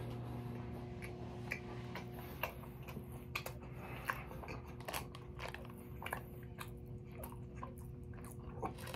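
Faint close-up chewing of a soft raspberry cheesecake cookie: irregular small mouth clicks and smacks, over a steady low hum.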